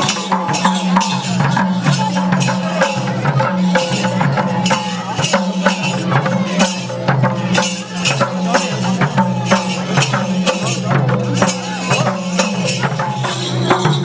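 Several madals, Nepali double-headed hand drums, beaten together in a quick, steady dance rhythm of sharp slaps and low thuds.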